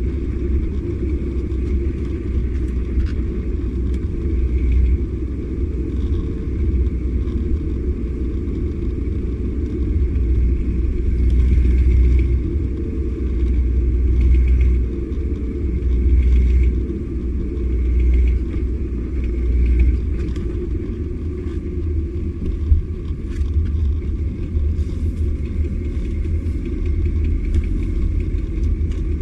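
Volkswagen Passat B3 running with the throttle pressed and eased in swells every couple of seconds, with a knock from the left front driveshaft under acceleration. The cause is a worn inner CV joint on the left half-shaft, whose boot was torn.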